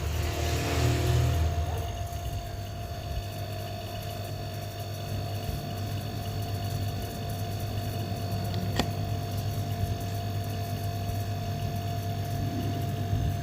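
Steady hum of a running electric motor, with a short hiss in the first second or so and a single sharp click about nine seconds in.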